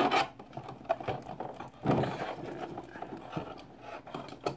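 Clear plastic blister packaging being handled and pulled from its box: irregular crinkles, clicks and small knocks, with a soft thump about two seconds in.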